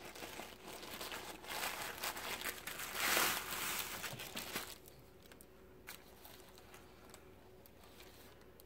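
Plastic wrapping being crinkled and pulled open by hand as an item is unpacked, loudest about three seconds in, then dying away after about five seconds.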